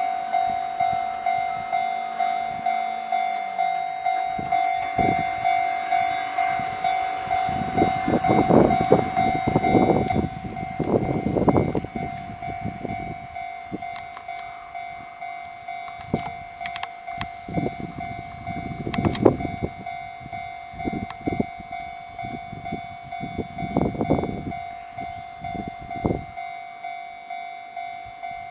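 Japanese level-crossing warning bell ringing steadily, about two dings a second, as an electric train runs over the crossing. The wheels clatter over the rail joints in repeated groups, loudest around a third of the way in.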